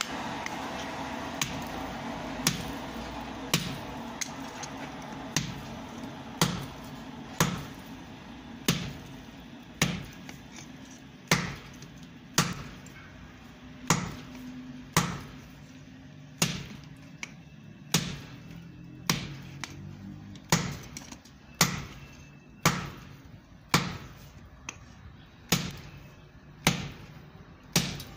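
Hand hammer striking a red-hot steel bolt on an anvil during hand forging: sharp blows about once a second in a steady rhythm.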